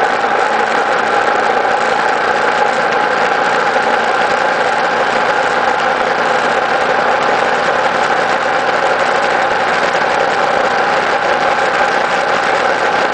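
Vehicle engine and tyre/road noise heard on board while driving at a steady pace: an even, unchanging drone with a steady whine in it.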